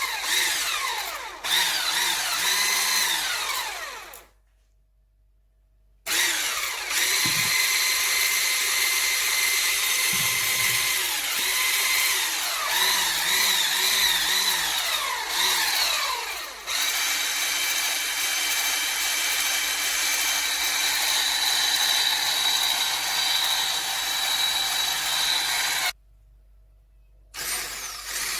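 Bosch ErgoMixx hand blender's electric motor running, its whine rising and falling in pitch as the speed changes, then holding steady. It stops twice, briefly.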